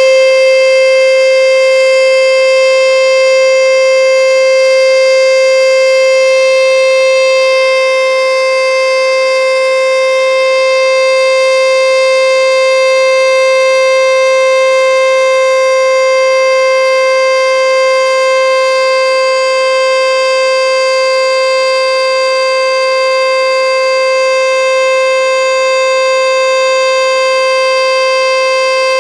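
American Signal Corporation T-121 Tempest eight-horn omnidirectional outdoor warning siren sounding its loud steady alert tone: one held pitch, rich in overtones, that neither rises nor falls. It is the alert signal, sounded for the system's monthly test.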